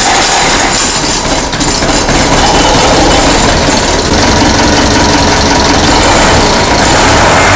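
Zetor 5320 tractor's four-cylinder diesel engine idling, loud and steady.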